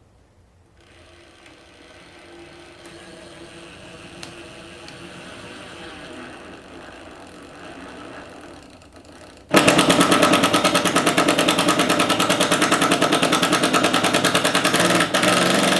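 Bosch 25618 18-volt impact driver driving a Phillips screw: the motor whirs steadily for most of the first nine seconds, then the impact mechanism kicks in with a loud, rapid, even rattle of hammer blows as the screw tightens.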